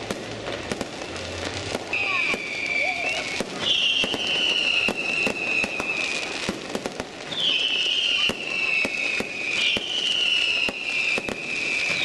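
A fireworks display going off in rapid cracks and bangs. From about two seconds in, whistling fireworks add several long high whistles, each a few seconds long and falling slightly in pitch.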